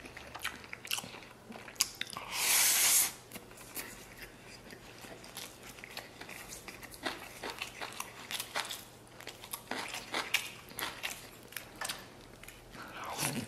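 Close-miked chewing of rice and red-braised lamb: a run of wet mouth clicks and smacks. About two seconds in there is one loud, breathy hiss lasting about a second.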